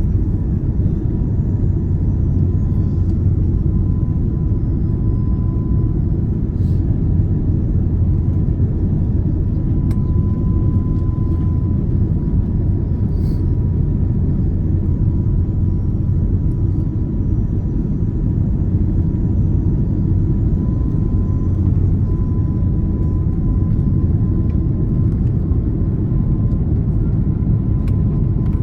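Steady cabin rumble of an Airbus A330 airliner, engine and airflow noise heard from inside the passenger cabin, with a faint steady whine above it.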